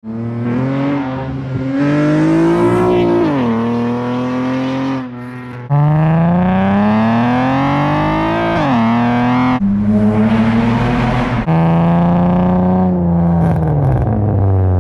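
Acura TL's exhaust as the car accelerates, the engine pitch climbing and then dropping sharply at gear changes, in several short clips with abrupt cuts between them.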